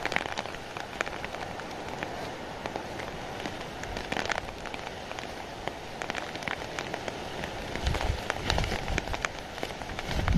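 Rain falling steadily, with many sharp ticks of single drops hitting a surface.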